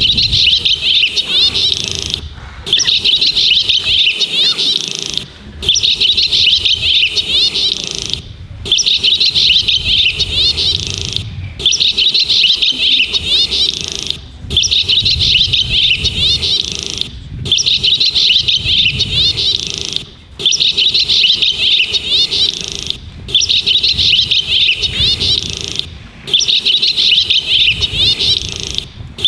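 Recorded bird twittering played over a sound system, dense and rapid, repeating in stretches of about three seconds with short breaks between them. It stands for the flock of hummingbirds at work building the castle.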